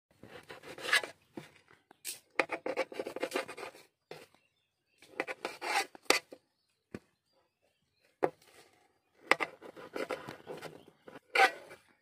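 Crusts being cut off slices of bread on a steel plate: a blade rasps through the dry crust and scrapes the metal. It comes in four bursts of about a second each, with a few single sharp knocks between them.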